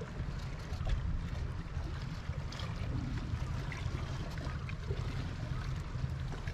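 Wind buffeting the microphone with a steady low rumble, over the hiss of the sea washing against the seawall.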